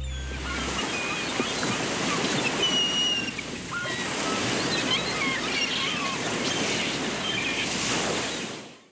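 Sea waves washing with a steady rush, with short high squeaks and chirps scattered over them. It fades out near the end.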